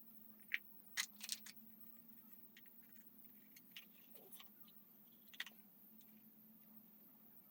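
Near silence over a faint steady hum, broken by a few short, light clicks and small metallic rattles, the loudest a cluster about a second in.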